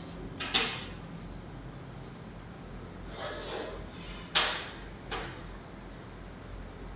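A long wooden ruler knocking against a whiteboard: a sharp knock about half a second in, and two more about four and a half and five seconds in, the first of those two the loudest. A short scrape of a marker drawing on the board comes about three seconds in.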